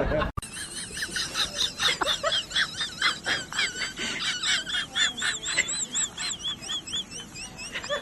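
Small birds chirping: a quick, unbroken run of short, high chirps, each rising then falling in pitch, with several calls overlapping.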